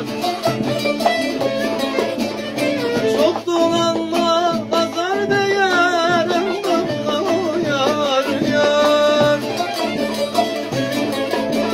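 Turkish folk music: a bağlama (saz) played with a pick while a man sings a melody in long, wavering notes without clear words.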